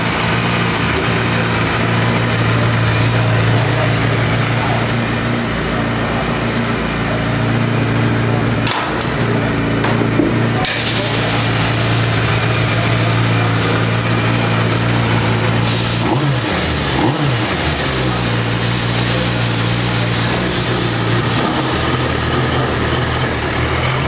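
Freshly rebuilt 2005 Suzuki Hayabusa inline-four engine idling steadily on its first run after the rebuild. About two-thirds of the way through, the pitch briefly rises and falls. A couple of sharp clicks come midway.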